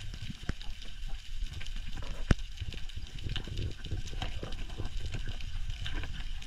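Underwater sound on a rocky reef: a steady low rumble of water and movement, dotted with many short sharp clicks and crackles, one louder click a little past two seconds in.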